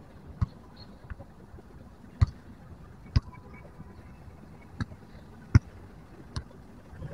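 A handful of short, sharp thuds at uneven intervals, a few of them much louder than the rest, over a faint steady outdoor hiss.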